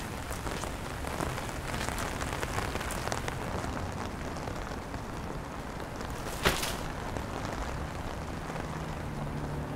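Steady rain falling, a dense patter of small drop ticks. A single louder sharp crack stands out about six and a half seconds in.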